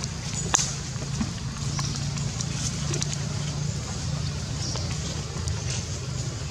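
Steady low rumble with scattered dry clicks and rustles of leaf litter, the sharpest click about half a second in.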